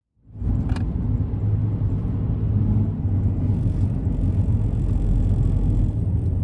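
Car driving: a steady low rumble of engine and road noise, with a single click about a second in.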